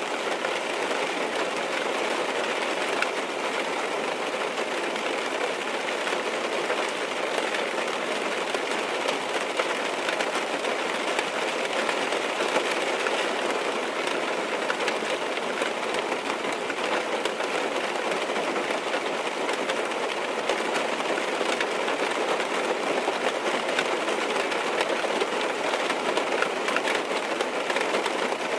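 Steady rain falling on a car's roof and windows, heard from inside the cabin as an even, unbroken patter.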